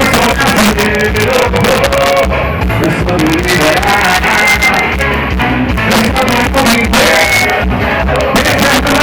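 Loud carnival music with a singer over a steady, driving beat.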